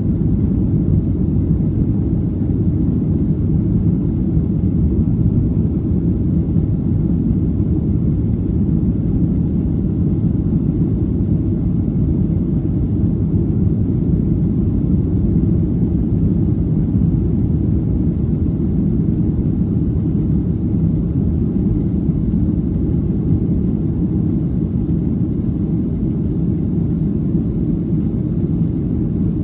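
Cabin noise inside a Boeing 737-700 airliner: a steady low rumble of its CFM56-7B engines and the airflow, unchanging throughout.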